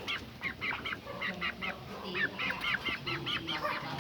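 Tame birds calling: a rapid run of short, repeated calls, several a second.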